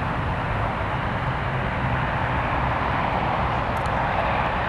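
Boeing 737-800's twin CFM56 turbofan engines at takeoff thrust, a steady, loud jet rumble heard from behind as the airliner rolls down the runway.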